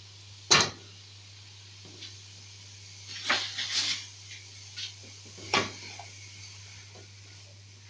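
A few sharp kitchen knocks and clatters of cookware and utensils: a loud one at the start, a cluster of knocks in the middle, and one more clack about two thirds of the way through.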